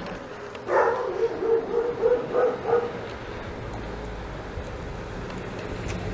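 A dog barks several times in quick succession, starting about a second in. After that a steady low rumble of wind and tyres from a moving electric scooter takes over.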